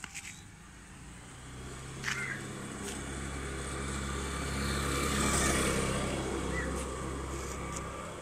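A motor vehicle passing by: its engine hum and road noise build over a few seconds, are loudest about five seconds in, then fade away. A few light clicks near the start.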